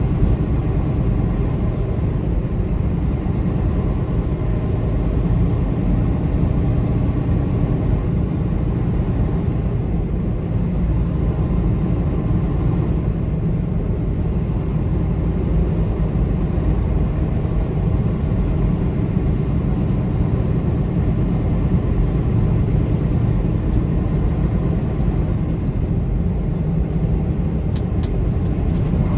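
A car driving at a steady speed, with continuous road and engine rumble, mostly low.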